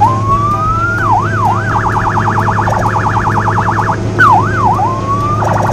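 Electronic police siren cycling through its tones: a slow rising wail, quick up-and-down swoops, then a fast warbling yelp, the pattern repeating once, over a steady low hum.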